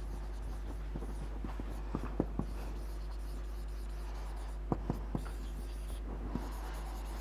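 Marker pen writing on a whiteboard: scattered faint taps and squeaks of the tip as words are written, over a steady low hum.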